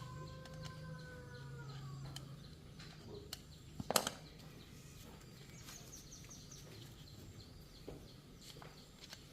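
A rooster crowing, the drawn-out call falling a little in pitch and ending about two seconds in, over a low hum. A few sharp clicks follow, the loudest about four seconds in.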